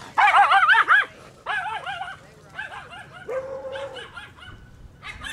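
Small dogs yapping and yipping in quick high-pitched bursts, loudest in the first second and quieter after, with one short held whine about three seconds in.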